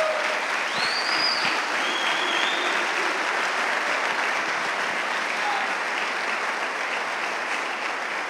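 Audience applauding, with a couple of short high-pitched calls from the crowd in the first few seconds; the clapping eases off slowly toward the end.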